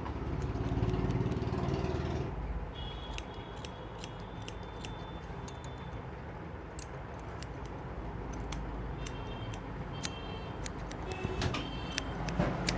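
Light metallic clicking and jingling over a low background rumble. The rumble is louder for the first two seconds, and the clicks come thickest after that.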